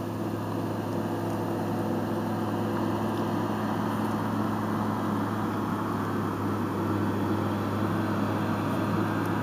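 Vehicle engine idling: a steady low hum over a constant hiss.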